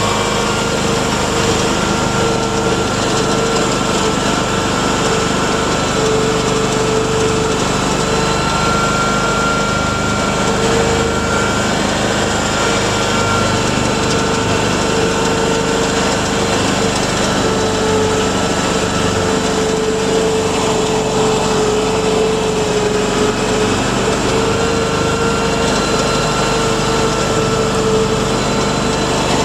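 Mudd-Ox 8x8 amphibious ATV on tracks running steadily under way, heard on board, its engine note overlaid by a steady whine that wavers slightly in pitch.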